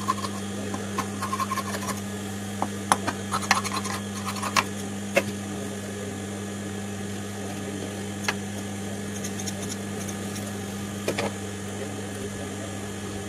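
Steady low electric hum of an industrial sewing machine's motor running while the needle is still, with scattered light clicks and taps, bunched in the first few seconds, as fabric pieces are handled on the machine table.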